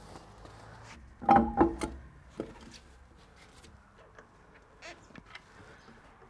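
A car's rear wheel being handled on its hub: two loud clunks with a brief metallic ring about a second in, then a few light knocks.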